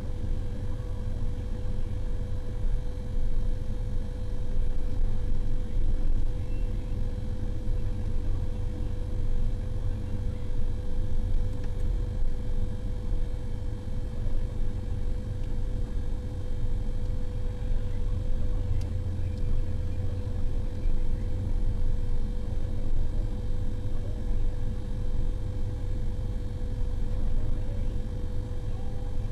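Motor grader's heavy diesel engine running under steady load: a constant deep rumble with an even hum above it.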